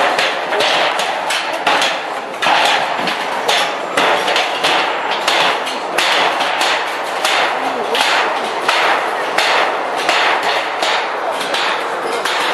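Hammer blows on a corrugated steel sheet fence being knocked down, fast and irregular, about two to three strikes a second.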